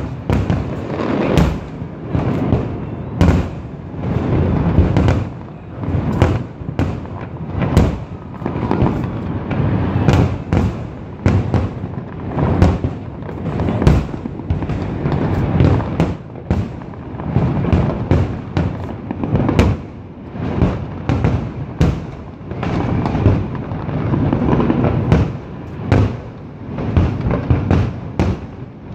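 Aerial fireworks display: a dense, continuous barrage of booming shell bursts and sharp crackling reports, overlapping with a constant rumble.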